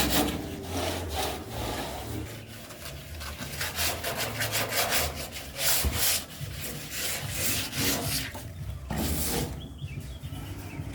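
Rapid back-and-forth rubbing strokes of a hand tool working a workpiece, like sanding or rasping, in uneven bursts with a couple of short pauses.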